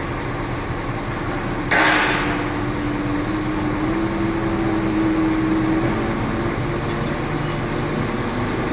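Construction site machinery running with a steady engine drone, its pitch stepping up and down a few times. Just under two seconds in, a loud, sudden noisy burst fades away within about half a second.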